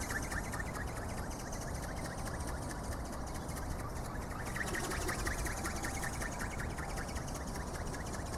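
Wind rumbling on the microphone, with faint repeated chirping from birds above it.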